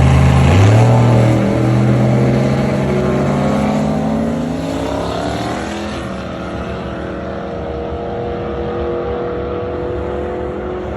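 Turbocharged 4.8 L LS V8 in a Fox-body Mustang running at full throttle down a drag strip. Its pitch jumps about half a second in, climbs through the middle, then holds while the sound fades as the car pulls away. On this pass the engine is overboosting past its 20 psi boost cut, close to 25 psi by the owner's log.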